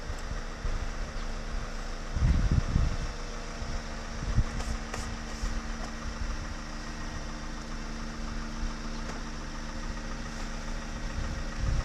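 Steady low mechanical hum of a running motor, with a brief low rumble about two seconds in.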